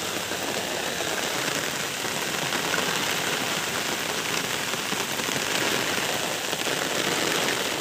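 Steady hiss of rain falling on shallow floodwater.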